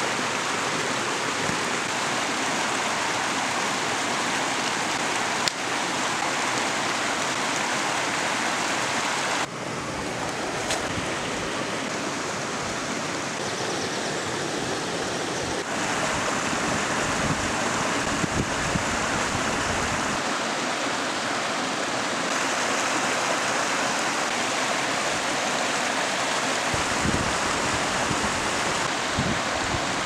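A stream running nearby: a steady, even rush of flowing water, its tone shifting slightly about ten and sixteen seconds in.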